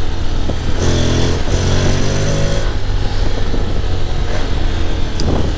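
Honda X-ADV's 745 cc parallel-twin engine pulling hard from on board, its pitch shifting as it climbs through the automatic gears, with the rear wheel just slipping under the power.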